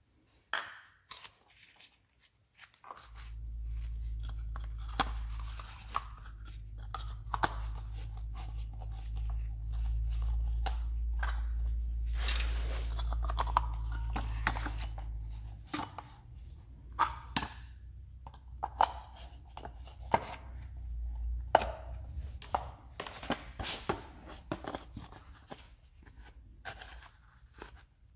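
Gloved hands handling and prying a scooter's plastic turn-signal lens and rear fender: an irregular string of plastic clicks, scrapes and knocks. A steady low rumble runs underneath from about three seconds in until about halfway, then fades.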